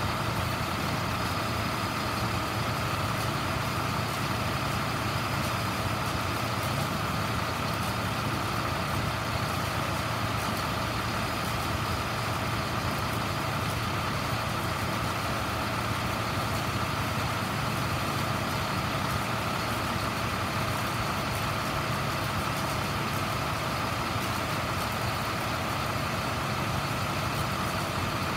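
Diesel engine of a 2008 International WorkStar vacuum truck running steadily while its Vac-Con boom is worked, with a steady whine above the engine's low drone.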